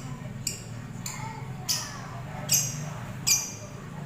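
Lovebird giving a series of short, sharp, high-pitched chirps, about one or two a second, each dropping slightly in pitch. The calls grow louder in the second half, over a low steady hum.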